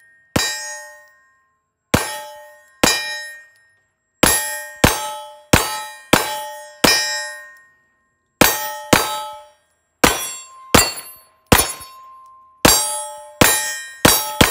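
Sig P320 X5 Legion 9mm pistol fired again and again at steel plates, about seventeen shots in uneven strings and quick pairs. Each shot is followed by the ringing clang of a struck steel plate.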